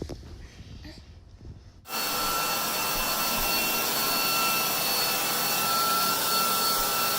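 A steady, loud whirring of a motor-driven appliance with a high whine running through it, cutting in abruptly about two seconds in. Before it, only faint soft rustling.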